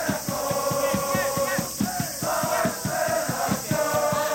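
Supporters' cheering section chanting in unison over a fast, steady beat, about six beats a second.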